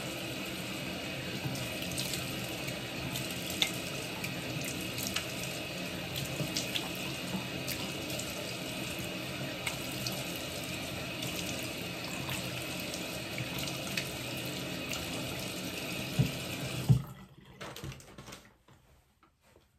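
Bathroom sink tap running steadily while face cleanser is rinsed off with the hands, with small splashes and drips throughout. The water is shut off about 17 seconds in, after a couple of knocks.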